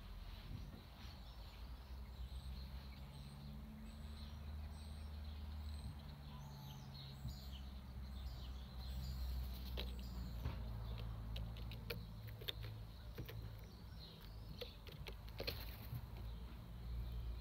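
Faint garden ambience: a steady low hum of distant traffic, with small birds chirping in short high notes. A run of sharper clicks and calls comes in the second half.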